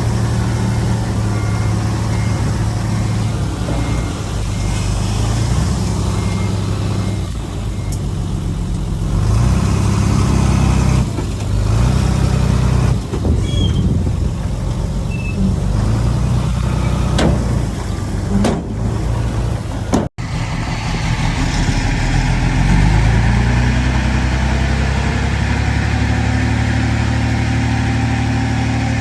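Heavy diesel earthmoving machinery working, a dump truck and a bulldozer, with the engines running hard and their pitch shifting under load. A reversing alarm beeps about twice a second for the first few seconds. The sound cuts out abruptly about twenty seconds in, and after that the engine runs more steadily.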